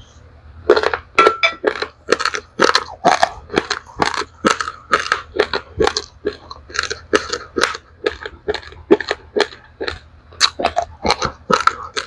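Close-up crunching and chewing of dry-roasted raw rice grains, white and black rice mixed: sharp crunches about two or three a second, starting about a second in, over a steady low hum.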